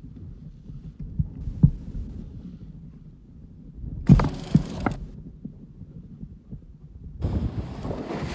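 Low, uneven wind rumble on a handheld microphone with a few sharp handling knocks, then about seven seconds in a loud hiss of sea water splashing and rushing against the boat.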